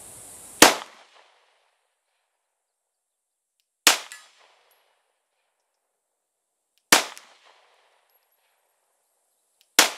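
Four single pistol shots from a Glock, about three seconds apart, each trailing off briefly, fired at steel targets 50 yards away.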